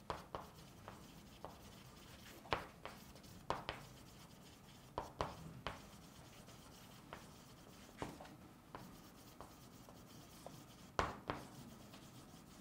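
Chalk writing on a chalkboard: faint, scattered taps and short scratches as the strokes are made, a few each second with brief pauses between.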